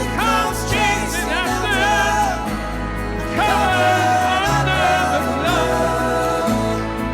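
Contemporary worship song: a solo voice sings sliding, ornamented lines over a band with steady bass and sustained keys, then holds one long note from about three and a half seconds in.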